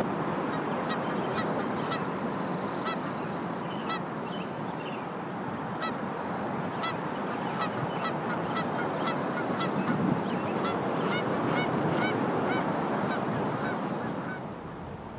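Waterbirds calling: many short, repeated calls from several birds, over a steady rush of wind and water. The calls thin out near the end.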